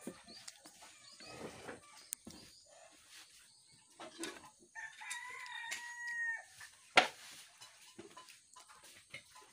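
A rooster crows once near the middle, one long call of about two seconds. A single sharp click follows just after it.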